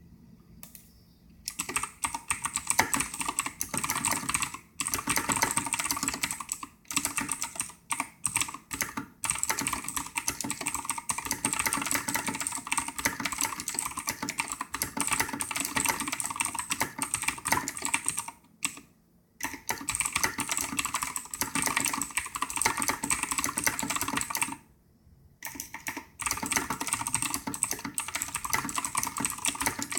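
Rapid typing on a Razer BlackWidow mechanical keyboard: a dense, continuous clatter of keystrokes that starts about a second and a half in, with a few brief pauses, the longest near the middle and about five seconds from the end.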